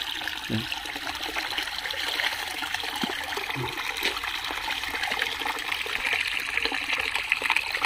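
Hands groping and sloshing in shallow muddy water while feeling under a bank for fish by hand: a continuous watery splashing and gurgling with many small irregular splashes.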